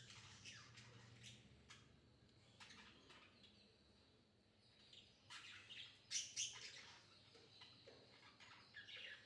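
Faint chirps of caged lovebirds: a few short, scattered calls, the loudest pair about six seconds in and a few fainter ones near the end.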